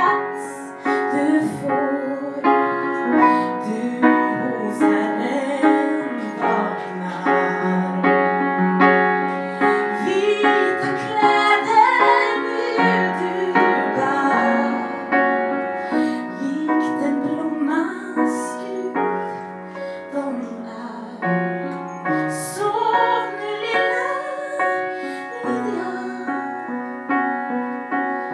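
A woman singing with her own upright piano accompaniment, her held notes wavering with vibrato.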